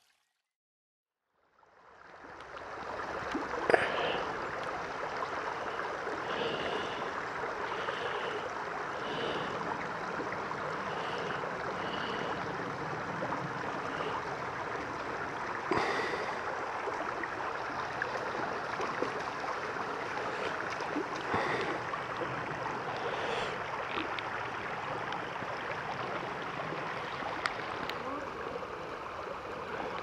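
Shallow creek running over rocks: a steady rush of water that fades in after a second or two of silence. A sharp click comes about 4 seconds in, a few short high chirps follow, and a few more clicks come later.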